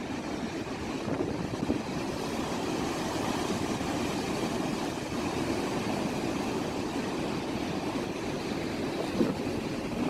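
Heavy storm surf: large waves breaking and crashing over a seawall, a continuous rushing roar of water with a sharper surge near the end.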